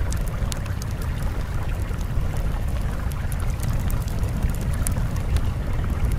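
Steady rushing-water noise, deep and rumbling, with scattered faint crackles and no pauses.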